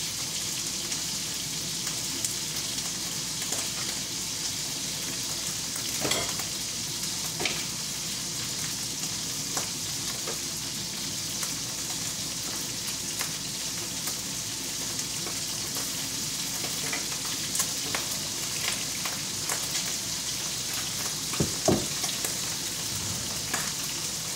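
Food frying in oil in a frying pan, a steady sizzle, with a few sharp knocks from kitchen utensils, the loudest near the end.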